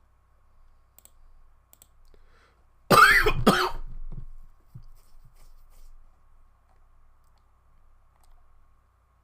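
A person coughing twice in quick succession about three seconds in.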